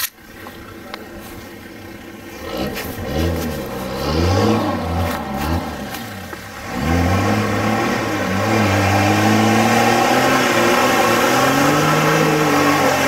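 A brief sharp click, then a four-wheel drive's engine revving up and down several times. From about halfway through it pulls steadily and hard, its pitch slowly climbing as the vehicle accelerates.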